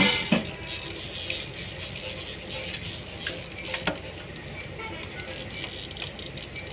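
The dial of a mechanical segment timer clicking as it is worked by finger: two sharp clicks at the start and another a little before four seconds in, over a steady background.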